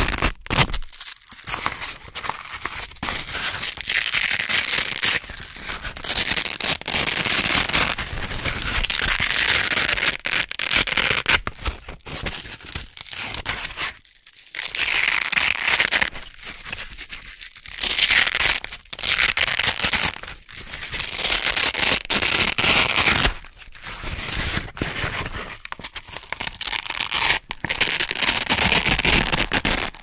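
Velcro circles being pulled apart from hook-and-loop fabric close to the microphone: a super crunchy, crackling rip, repeated in pulls of one to a few seconds with short pauses between.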